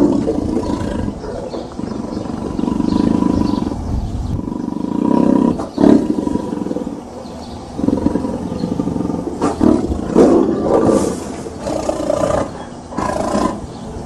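Tiger growling in a string of low bouts, each a second or two long, with short pauses between.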